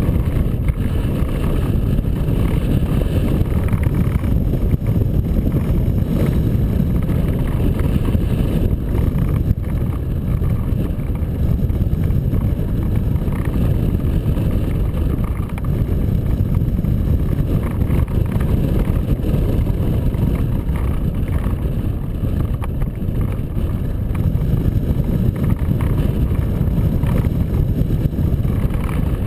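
Wind from the glider's airflow buffeting the microphone of a camera mounted on a hang glider's wing in flight: a loud, steady low rumble.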